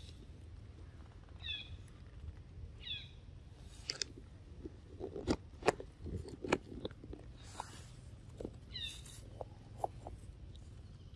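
Short high chirps, four times, each slightly falling, with sharp clicks and dry crackles scattered through the middle over a low steady rumble.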